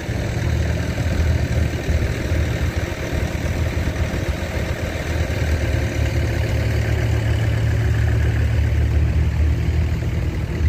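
Excavator diesel engine idling steadily with a low, even hum.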